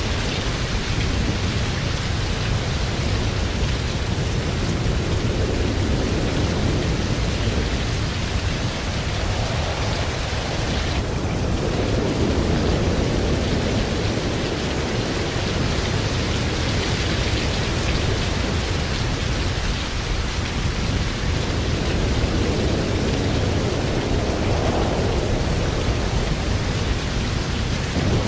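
Typhoon wind and heavy rain: a steady rushing noise with a deep rumble of wind on the microphone, swelling and easing in gusts.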